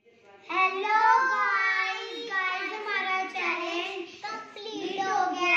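Young girls singing, starting about half a second in after a brief silence.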